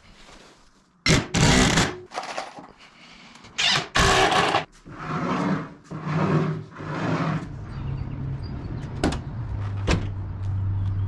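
Long PVC siding strips are slid and set into a plywood drawer frame, making two loud scrapes about a second in and about four seconds in, then softer rubbing strokes. A steady low hum comes in for the last few seconds.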